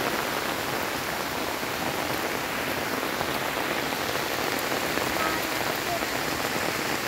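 Steady rain falling on wet grass and standing water: an even, unbroken hiss.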